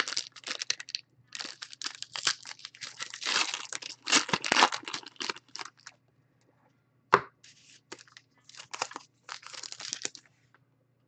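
Foil football trading-card pack wrappers being torn open and crinkled by hand, in bursts of rustling. A single sharp click comes about seven seconds in.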